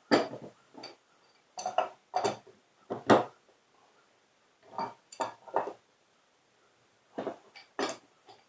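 Irregular metal clinks and knocks of hand tools against the metal parts of a frost-free yard hydrant being taken apart, coming in small clusters with short pauses between them.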